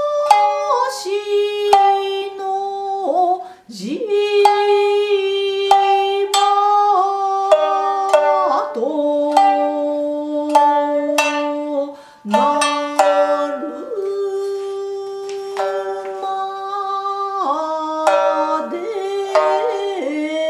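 Shamisen struck with a large bachi plectrum, sharp snapping plucks. Over it, a woman sings long held notes that slide between pitches.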